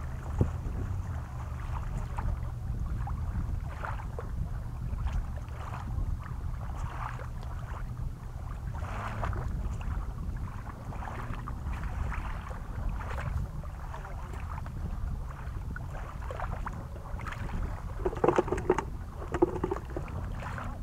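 Wind rumbling on the microphone over small waves lapping at a lake shore, with a few louder, brief sounds near the end.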